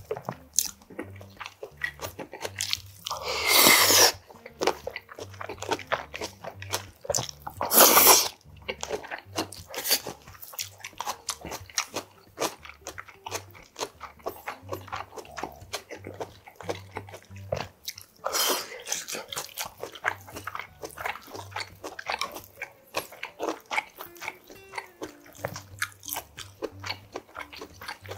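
Close-miked eating: chewing and crunching of spicy sea snail salad with raw shredded vegetables, in many quick small crunches. Three louder, longer slurps come about three, eight and eighteen seconds in.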